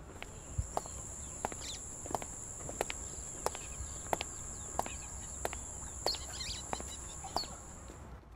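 Footsteps on stone paving at an even walking pace, about three steps every two seconds, with a few short bird chirps. A steady high-pitched drone runs under them and cuts off shortly before the end.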